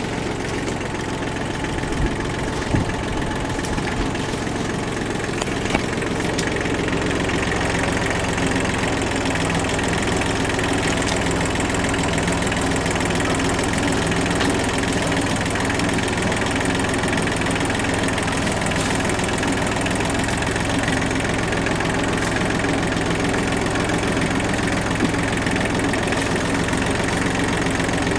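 Kubota tractor-loader-backhoe's diesel engine running steadily under work, picking up a little about six seconds in, with a few sharp knocks in the first few seconds.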